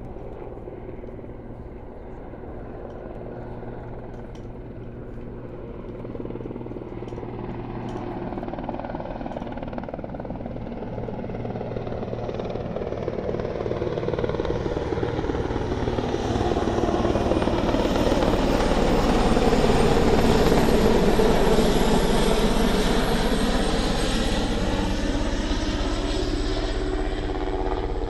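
Marine Corps helicopter (Nighthawk One) approaching to land, its rotor noise growing steadily louder. It is loudest about twenty seconds in, then eases off a little.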